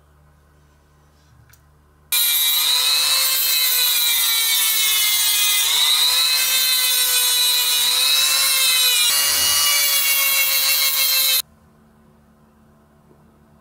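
Handheld rotary tool with a small abrasive wheel running at high speed, a steady high whine with a grinding hiss as it sands a small wooden dowel piece; the pitch sags briefly a couple of times as the wheel bears on the wood. It starts suddenly about two seconds in and stops suddenly some nine seconds later.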